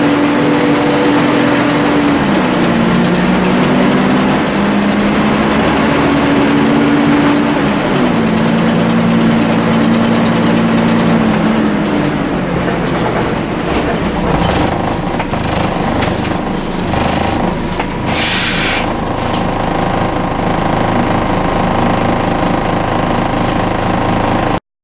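Volvo B10BLE bus's six-cylinder diesel engine pulling away and running through its gears, its pitch rising, then stepping down twice. After that a steadier whine with a short burst of air hiss about two-thirds of the way through.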